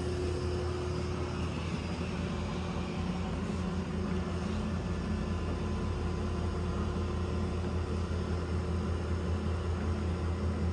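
Mori Seiki MS-2000G heavy-duty engine lathe running with its spindle turning, a steady mechanical hum.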